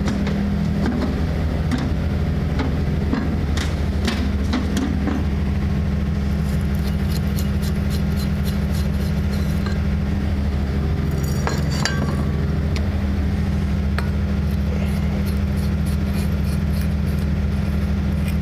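Steady low machine hum throughout, with scattered knocks and clicks, and a few sharp glass clinks about eleven to twelve seconds in as a light bulb is handled and screwed into a ceiling socket.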